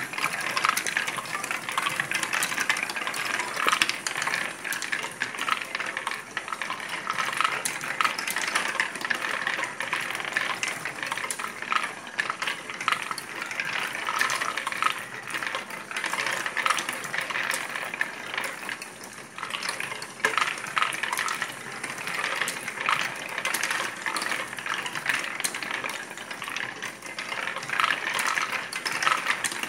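Steel balls rolling and clattering through a kit-built wooden marble run: a steady rolling rattle along wooden tracks, dotted with many small clicks as the balls drop, knock against wooden parts and strike one another.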